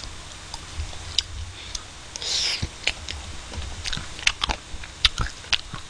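Eating ice cream: irregular small clicks and scrapes of a plastic spoon in a paper ice-cream cup, with chewing and mouth sounds. A short breathy hiss comes about two and a half seconds in.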